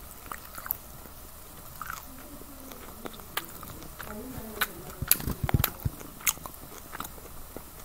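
Close-up eating sounds of a chicken wing being chewed: scattered wet mouth clicks and smacks, with a burst of louder, closely spaced clicks about five seconds in.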